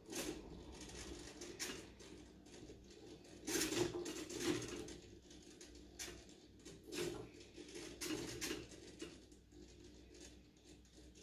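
Small hobby servo motor whirring and buzzing in short, irregular bursts as it makes correcting moves that tilt a beam under a rolling ping-pong ball. The moves are driven by a PID control loop holding the ball at the beam's centre.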